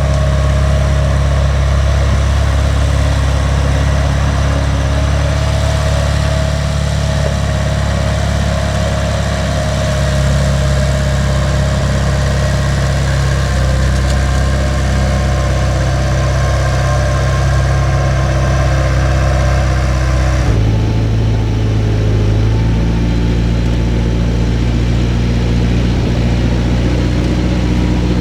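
An engine running steadily. About 20 seconds in the sound changes abruptly: the higher part drops away and the low tone shifts.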